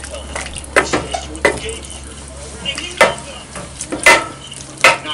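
Wooden spatula stirring and tossing lo mein noodles in a square pan over a low frying sizzle, with several sharp knocks and scrapes as the spatula hits the pan.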